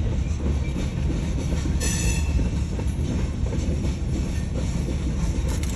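Long freight train rolling past, its cars and wheels making a steady rumble, with a brief high wheel squeal about two seconds in.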